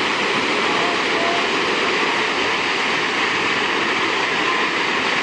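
Steady roar of Kegon Falls, a tall waterfall with water plunging continuously into its basin.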